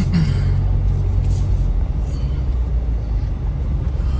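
Jeep engine running steadily at low revs, a continuous low drone.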